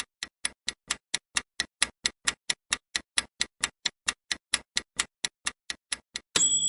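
Quiz countdown-timer sound effect: steady clock-like ticking, about four ticks a second, ending near the end in a bright bell ding that rings on as the time runs out.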